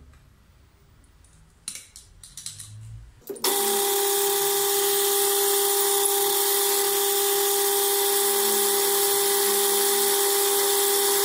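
A few light clicks, then, about three seconds in, a metal lathe comes in abruptly and runs on with a steady whine and hiss as it turns an aluminium bar.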